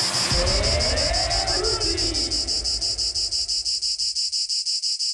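Insects trilling outdoors, a high-pitched chirring that pulses fast and evenly without a break. Over its first two seconds the tail of a whooshing transition effect, with gliding tones and a low rumble, fades away.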